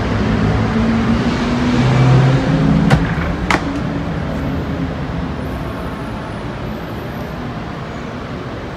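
Steady rushing background noise with a low rumble that swells about two seconds in, and two sharp clicks about half a second apart around three seconds in.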